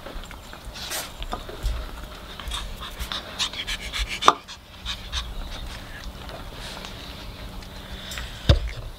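Pomeranian puppies panting and scuffling, with a sharp sound about four seconds in and a thump near the end.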